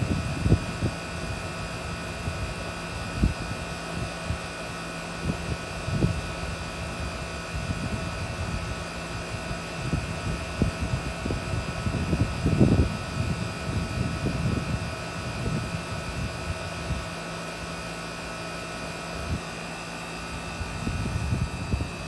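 Central air conditioner's outdoor condensing unit running steadily: compressor and condenser fan making a continuous hum with several steady tones. Irregular low buffeting on the microphone comes and goes over it.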